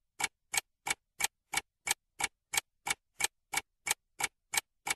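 Clock-ticking sound effect: short, even ticks, about three a second, with dead silence between them.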